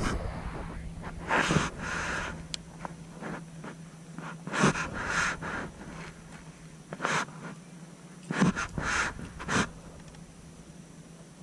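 A person breathing close to the microphone in short, irregular breaths over a steady low hum.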